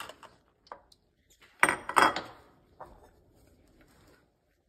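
A stainless steel pot and kitchen utensils clattering: a few light clinks, then a louder burst of knocking and scraping about a second and a half in, and one more small knock after it.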